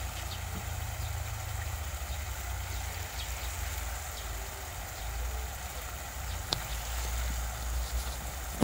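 Thick spiced tomato-onion masala sizzling and bubbling in a wok under a layer of small whole fish: a steady soft crackle with scattered small pops and one sharper tick about six and a half seconds in, over a low steady rumble.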